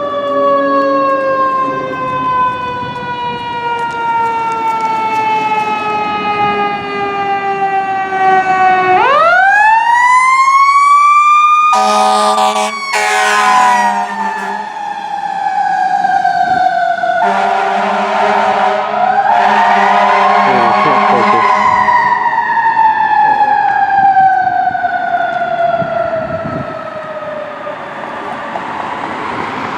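Fire engine siren winding slowly down in pitch, then rising sharply about nine seconds in and again around twenty seconds, falling off after each peak. Between about twelve and twenty-two seconds it is joined by long, low, steady blasts of the engine's air horn.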